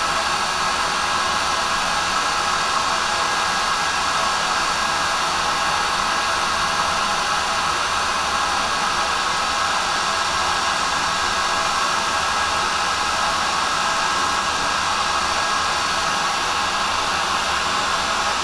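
Handheld hot-air gun blowing steadily, its fan and heater running at an even level without change, as it heats a laptop motherboard's BGA graphics chip to reflow the solder.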